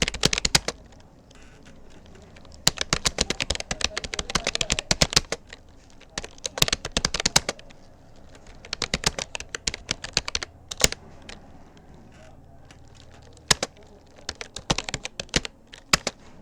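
Rapoo computer keyboard being typed on at speed: runs of rapid key clicks in bursts, broken by pauses of about a second or two.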